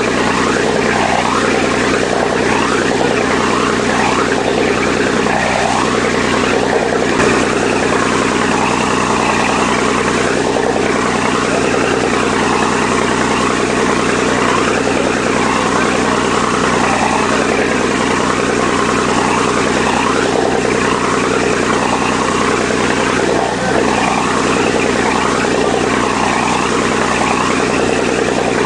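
A boat's engine running at a steady pitch, with the rush of churning water from the boat's wake over it.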